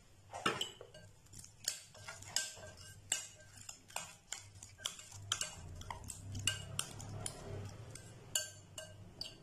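Steel spoon clinking and scraping against a glass mixing bowl while stirring water into semolina (rava) to make batter, with irregular clicks one or two a second. A knock about half a second in as a jar is set down on the tray.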